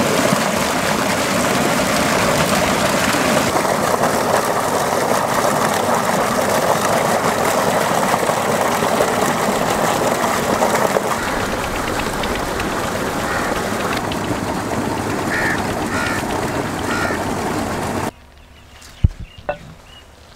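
Heavy stream of water gushing from a pipe into a brick water tank, splashing over a steel bowl as vegetables are rinsed in it. It is a loud, steady rush that cuts off abruptly near the end, leaving a few light knocks.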